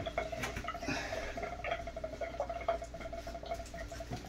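Scattered small clicks and scuffs of wet puppies' claws on a bathtub floor and a towel rubbing as one puppy is dried, over a steady hum.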